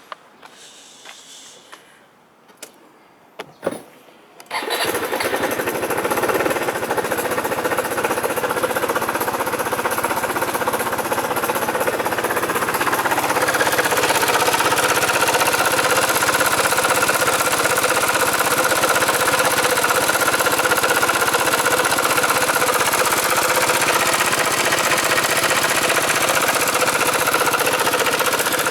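Kymco Racing King 180Fi scooter's single-cylinder four-stroke engine starting after a few clicks, about four seconds in, then running with a loud mechanical clatter that grows a little louder after about ten seconds. The clatter is the sign of a broken cam chain tensioner bar: the chain is slapping inside the head, a noise that rises with engine speed.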